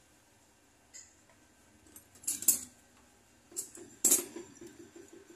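Metal tools clinking and clattering against each other and the firebrick, loudest around two and a half seconds in and again at about four seconds, as a jeweller's blowtorch is picked up and lit. A steady flame hiss runs on after that.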